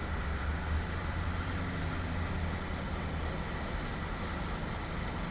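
Audi 2.0 TFSI (CAEB) turbocharged four-cylinder engine running steadily, fitted with a turbocharger that has gone bad.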